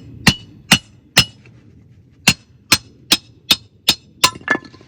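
Repeated sharp, ringing metal-on-metal strikes on a firewood-splitting wedge, driving it into a log to split it: three blows, a pause of about a second, then seven quicker blows.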